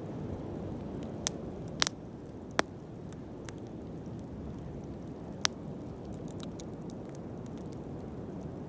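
Bonfire burning with a steady low rush, with four sharp pops of burning wood, three of them close together in the first few seconds and one more about halfway through.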